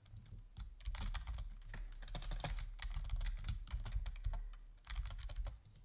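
Typing on a computer keyboard: a quick, uneven run of key clicks, each with a dull low thud, stopping shortly before the end.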